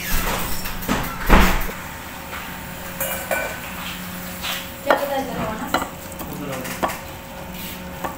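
A spoon scraping and knocking against a stainless steel mixing bowl as potato egg salad is scooped and tipped into a glass bowl, with a few sharp clinks and knocks, the loudest about a second in, over a steady low hum.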